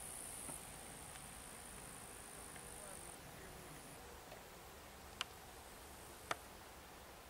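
Faint field ambience with a steady high-pitched chirring of insects that fades out after about three to four seconds, and two sharp clicks about a second apart near the end.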